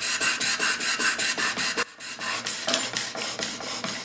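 Chisel in a General sharpening jig being stroked back and forth on a coarse DMT diamond stone: rapid, even scraping strokes of steel on diamond plate. A sharp click comes a little under two seconds in, after which the strokes go on more quietly.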